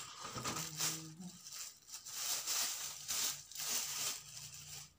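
Clear plastic packaging crinkling and rustling in the hands, in a run of short irregular rustles.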